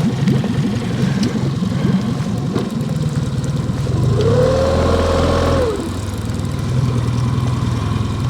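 Boat motor idling, briefly throttled up about four seconds in and settling back to idle just before six seconds.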